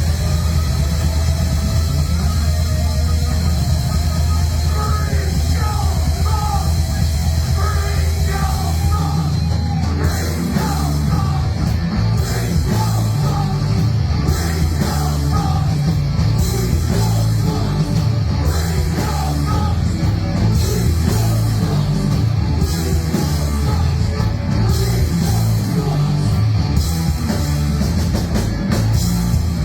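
Live rock band playing loud, heavy metal-style rock with drums, the sound growing busier about ten seconds in.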